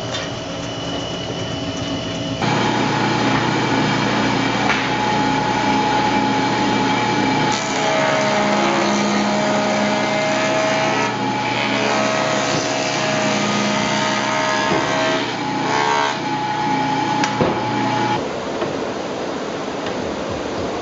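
Woodworking power tools at work: a bandsaw cutting through a bark-covered log, then, after a sudden change a couple of seconds in, a jointer running with the log pushed across its cutter head, its tone shifting under the cut. Near the end the sound changes again to a table saw running.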